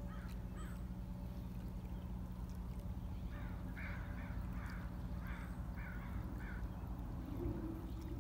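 A bird calling repeatedly: about a dozen short calls, a few near the start and most in a run from about three to six and a half seconds in, over a steady low hum.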